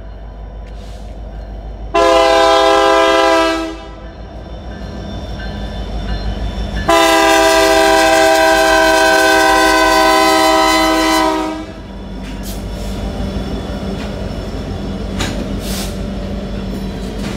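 Canadian Pacific SD70ACU's Nathan K3LA three-chime air horn sounding a short blast, then a long blast of about five seconds: the closing short-and-long of the grade-crossing horn signal. The diesel locomotive's rumble builds under the horn, and after the long blast the train's wheels roll past with a faint clickety-clack.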